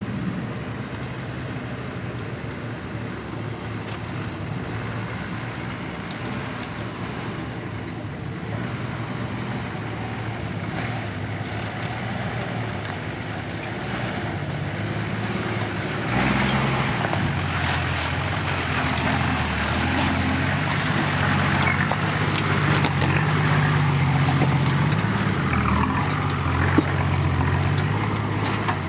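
Engine of a short-wheelbase MK Nissan Patrol 4WD working under load as it crawls up a rocky climb, growing louder about halfway through as it nears, its note shifting with the throttle. Scattered clicks and knocks sound over it, with one sharp knock near the end.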